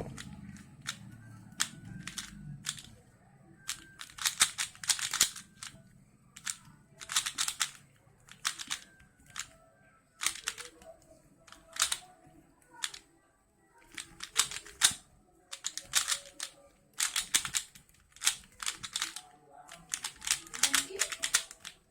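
A plastic speedcube being turned during a timed solve: quick flurries of clicking layer turns with short pauses between them, after a sharper knock right at the start.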